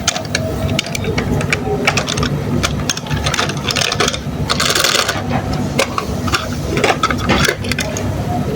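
Diecast toy cars being handled and played with: many small clicks and rattles of metal and plastic over a steady low hum, with a short rushing hiss about halfway through.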